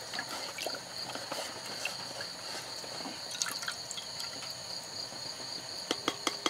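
Water dripping and splashing off a folded jack-leaf cup back into a shallow plate of water as the cup is dipped and lifted out, with a few sharper light clicks near the end.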